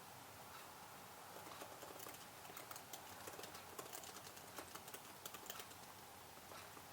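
Faint typing on a computer keyboard: a quick run of light key clicks, busiest in the middle and sparser at the start and end.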